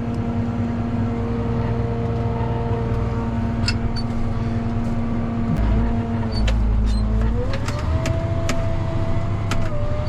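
A sprayer tractor's engine runs steadily, heard from inside the cab. Its pitch dips briefly, then about seven seconds in it rises and holds higher as the engine speeds up. A few sharp clicks and rattles come through in the second half.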